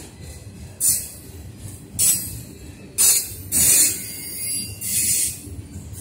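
Freight train of autorack cars rolling past: a steady low rumble of wheels on rail, broken by loud, hissing, clattering bursts about once a second.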